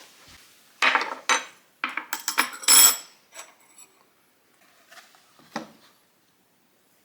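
Dishes and cutlery clattering as they are handled, in two bursts of knocks and clinks with ringing overtones about one to three seconds in, then a single knock near the end.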